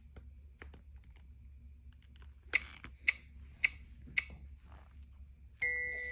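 Light handling noises from a plastic baby doll, including four sharp clicks about half a second apart. A chiming, glockenspiel-like melody starts near the end.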